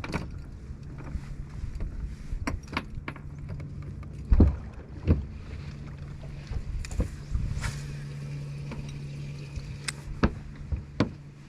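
Steady low electric hum on a fishing boat, with a dozen scattered knocks and clicks of gear being handled on the deck, two of them louder about four and five seconds in.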